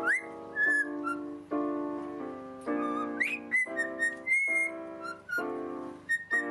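A pet parrot whistling along to chords played on a digital piano: short whistled notes over the held chords, with a quick rising swoop near the start and another about three seconds in.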